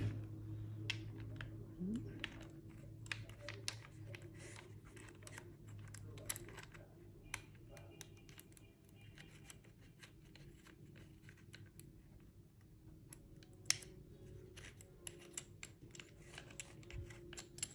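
Faint, irregular small clicks and scrapes of metal parts handled by hand: a flash hider being fitted onto an airsoft Glock's muzzle with a key-like tool. One click about 14 seconds in is louder than the rest.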